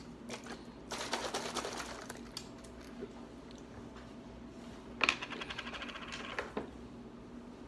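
Plastic screw cap of a juice bottle being twisted off, a crackling run of fast clicks about a second in, and screwed back on near the end with another even run of rapid clicks.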